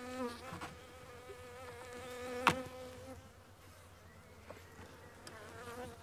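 Honeybees buzzing in a steady, slightly wavering hum around an open hive. About two and a half seconds in comes one sharp click: propolis sealing a frame cracking loose as the frame is levered with a hive tool.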